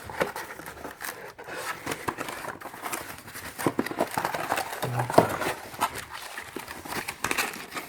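Accessories and their packaging being handled and unpacked: irregular rustling, crinkling, small clicks and scrapes.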